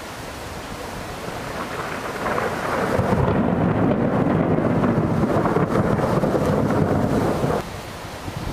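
Thunder rumbling over a steady hiss of rain. It builds over a couple of seconds, stays loud for about four seconds, then breaks off abruptly near the end.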